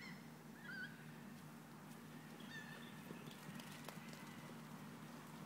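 Faint outdoor sound with a few short honk-like animal calls, about a second in and again at about two and a half seconds, and a cluster of faint knocks just past the middle.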